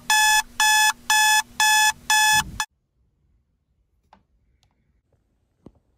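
Electronic alarm beeping: loud, even, high beeps about two a second, cut off abruptly about two and a half seconds in. After it comes near silence with a couple of faint clicks.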